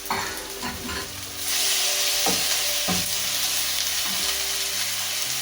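Onions and freshly added chopped tomatoes frying in hot oil in a pan: a sizzle that jumps louder about a second and a half in and then holds steady, with a few light knocks.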